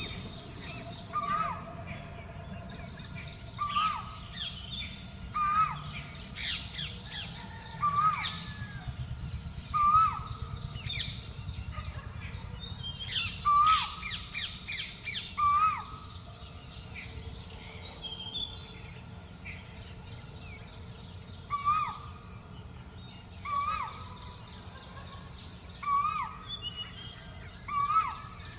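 Asian koel calling: a short, rising call repeated about every two seconds, stopping for several seconds midway, over the chirping of other small birds.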